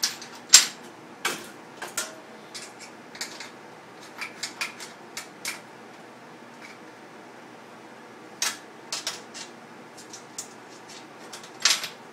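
Steel hand tools and clamps clinking and clanking against a steel welding table and square tubing as they are picked up and set down: scattered sharp clanks, the loudest about half a second in, with a quiet stretch in the middle.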